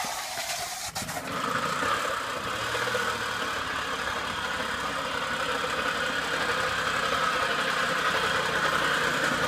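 1980 Puch Maxi moped's single-cylinder two-stroke engine running with an awful racket, which the owner takes for a bad motor. It stumbles briefly about a second in, then runs on steadily.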